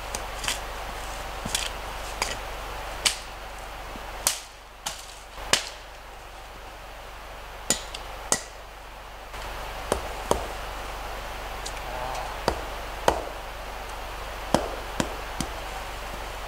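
A freshly broken piece of wood being broken up for firewood: a string of sharp, irregular knocks and cracks of wood, roughly one a second.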